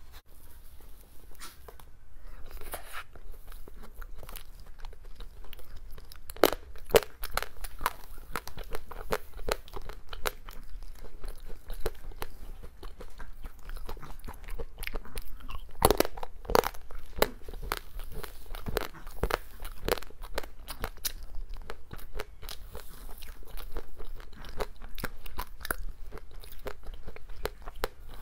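Cake being eaten up close: continuous crunching and chewing, with a few louder bites about six seconds in and again around sixteen seconds.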